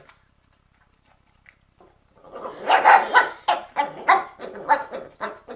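Dog at its food bowl letting out a rapid string of harsh, snarling barks, starting about two seconds in: a warning from a dog guarding its food.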